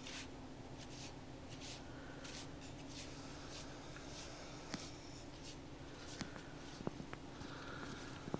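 Close-miked ASMR rustling from hands moving near the microphone: soft brushing swishes in quick succession, about two a second, with a few small clicks in the second half over a faint steady hum.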